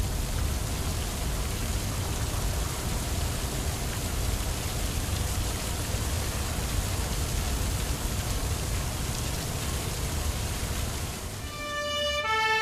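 Cartoon sound effect of a fire hose spraying water: a steady rushing hiss with a low rumble beneath it. About a second before the end, the hiss gives way to a stepped electronic siren.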